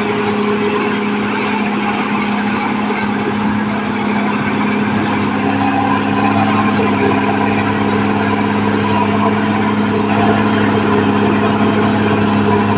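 Caterpillar D6R XL bulldozer's diesel engine running steadily under work, with an extra higher tone joining about halfway through.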